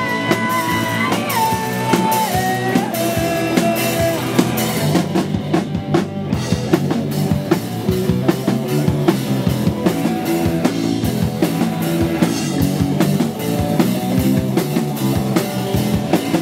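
Punk-rock band playing: drum kit, electric guitars and bass guitar. Some held notes step down in pitch over the first few seconds.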